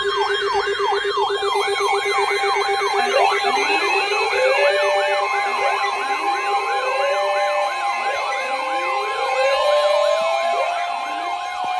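Several emergency sirens sounding together. A fast yelp sweeps down in pitch about three times a second, slower wails rise every couple of seconds from about three seconds in, and a steady low tone stops about seven seconds in.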